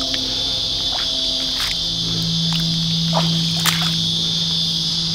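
Steady, high-pitched chorus of insects in the bush, with a few scattered sharp clicks and snaps.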